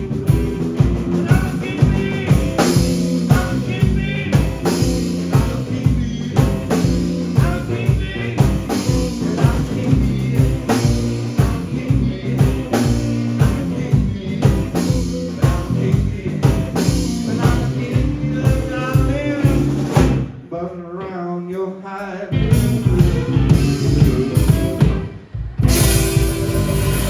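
Live blues band with electric guitar, bass, drums and harmonica playing loud with a steady beat, the lead line bending in pitch. About 20 seconds in the drums and bass drop out for a couple of seconds, leaving a lone wavering solo phrase. The full band then comes back in, with one more short stop before it resumes.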